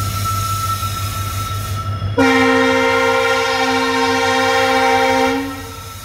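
Indian Railways train running on a curve, heard from a coach doorway, with a steady low rumble and a thin steady whine. About two seconds in, the train's horn blows one long, steady blast of about three seconds, then the running noise carries on.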